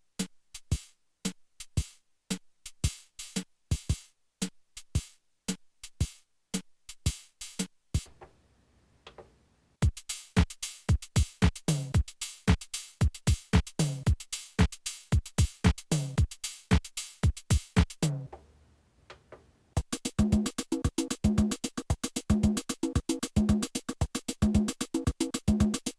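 Technics SX-K200 keyboard's built-in rhythm machine playing preset electronic drum patterns, switched to a new pattern twice. The first pattern is sparse, the second is busier with drum hits that drop in pitch, and the third is dense with pitched notes over the beat.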